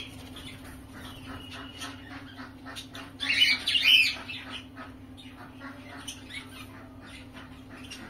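Caged pet birds chirping and squawking, with a louder cluster of squawks about three to four seconds in, over a steady low hum.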